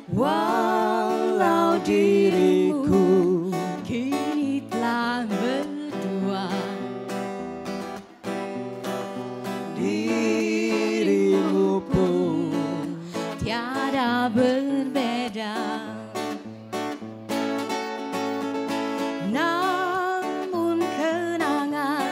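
Live band playing an instrumental break of an Indonesian pop ballad: acoustic guitar and a stepping bass line under a wavering lead melody.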